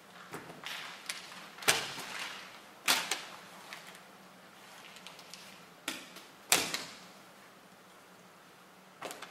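Small pocket items, a phone and a plastic water bottle among them, dropped one by one onto a carpeted floor. They land with about six sharp knocks, the loudest around two, three and six and a half seconds in, with a soft rustle of handling between them.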